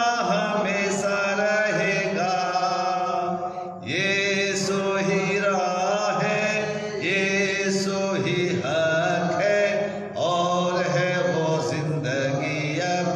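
A man singing a Hindi Christian hymn in slow, chant-like phrases of long held notes.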